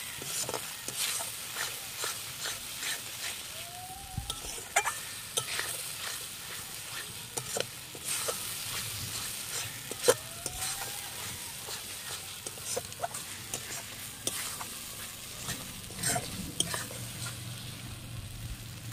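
Metal spatula scraping and knocking against a steel karai as a spice paste (masala) is stir-fried down in oil, over a steady sizzle. The strokes come irregularly, with one sharp knock about halfway through.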